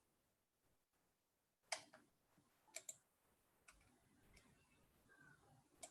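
Near silence with a few faint, sharp clicks: one about two seconds in, a quick pair a second later, and a weaker one after that.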